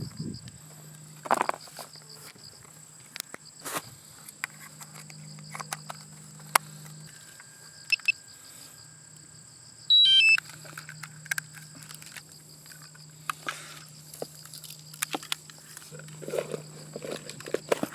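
Insects trilling steadily in high pitch, with scattered clicks and knocks and a brief loud run of falling high notes about ten seconds in.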